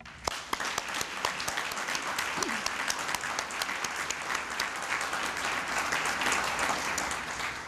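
Audience applauding: a large room of people clapping, starting just after a request for a round of applause and dying away near the end.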